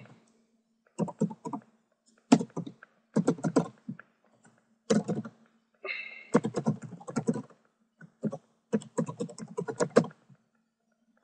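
Typing on a computer keyboard in several quick bursts of keystrokes separated by short pauses, with a faint steady hum underneath.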